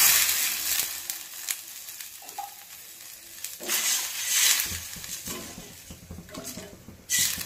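Water poured into a stainless steel pot of onions frying in hot oil, the sizzle dying away over the first second or two. Then a metal spoon stirs and scrapes the pot, with light clinks of metal on steel.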